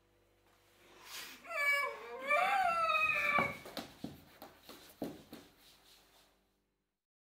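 A woman screams for about two seconds, high and wavering, then a sharp thud and several lighter knocks follow before the sound cuts off suddenly.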